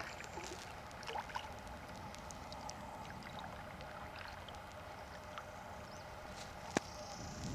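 Gentle river water lapping and trickling against a drifting canoe, with scattered light ticks and one sharp knock near the end.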